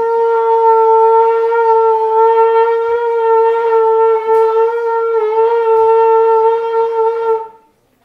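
A shofar blown in one long, steady, loud blast that cuts off about seven and a half seconds in.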